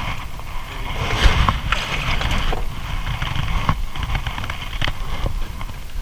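Wind and water noise on a small outrigger fishing boat, with a few short knocks and clicks scattered through it.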